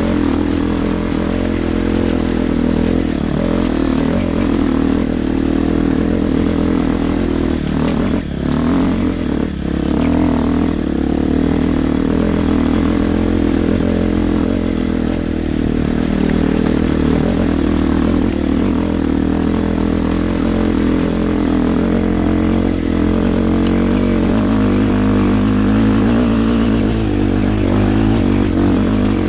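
Motorcycle engine running steadily, with a brief drop in level about eight seconds in.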